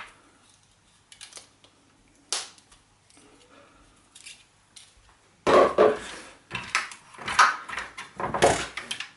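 Plastic power-shower parts being handled: the mixer valve and push-fit inlet assembly knocked and turned over on a worktop. A few scattered clicks at first, then louder rattling and clattering through the second half.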